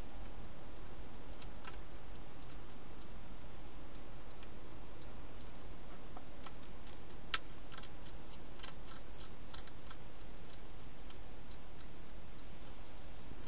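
Wild hedgehog crunching dry food: irregular small clicks in clusters, the sharpest about seven seconds in, over a steady hiss.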